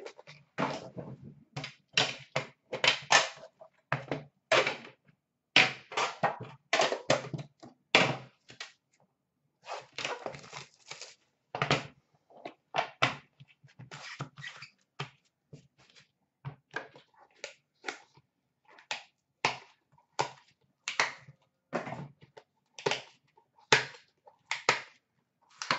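Hands handling a metal trading-card tin, its pack and cards on a glass counter: an irregular run of short, sharp clicks, taps and knocks, one to a few a second, with brief quiet gaps between.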